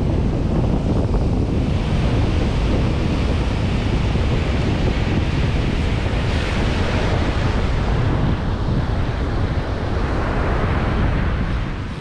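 Sea surf washing and breaking on the beach, under heavy wind buffeting the microphone with a constant low rumble. The hiss of the surf swells twice, about halfway through and again near the end.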